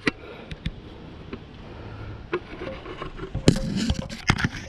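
Scraping and several sharp knocks from rubber hydraulic hoses being handled and rubbed against the steel loader frame, busiest about three and a half seconds in.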